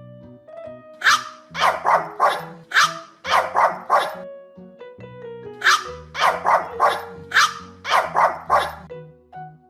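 Puppy barking in two quick runs of high, sharp barks, about eight or nine barks each, over light background music.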